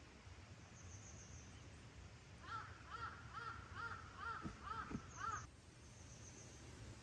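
A bird calling in a quick run of about six short calls, each rising and falling in pitch, over roughly three seconds in the middle.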